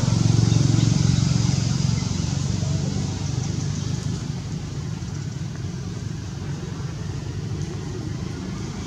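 A motor vehicle's engine running steadily, louder for the first couple of seconds and then easing to a lower, steady hum.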